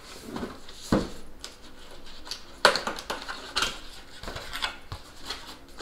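Cardboard packaging being handled: a box slid out of its printed sleeve and its flaps opened, with scraping and rustling of cardboard and a few knocks against the table, a low thump about a second in and a sharper knock near the middle.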